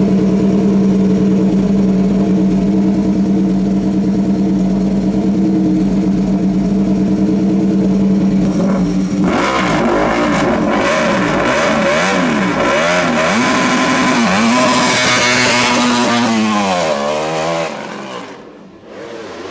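Race car engine held at steady revs on the start line on launch control, then launching about nine seconds in. It accelerates hard through several quick upshifts, the pitch climbing and dropping each time, and fades away up the hill near the end.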